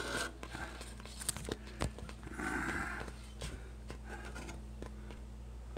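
Faint kitchen handling noises: scattered light clicks and knocks of a wire whisk and a stainless steel pot, over a steady low hum.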